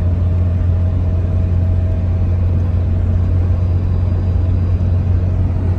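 Chrysler 2.4-litre four-cylinder engine in a GAZelle van, running on LPG and pulling steadily up a small hill. Heard from inside the cab as a loud, steady low drone.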